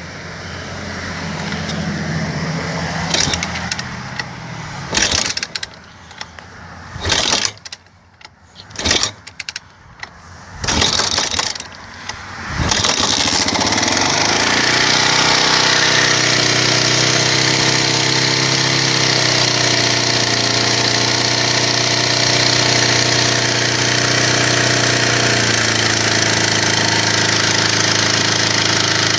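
1986 Kawasaki KLR250 single-cylinder four-stroke engine being started: several short, uneven bursts with pauses between them, then it catches about 13 seconds in and settles into a steady idle. The idle carries a knock or tick that the owner suspects comes from the automatic compression release (KACR), valve clearance or worn cams, and doubts is piston or crank related.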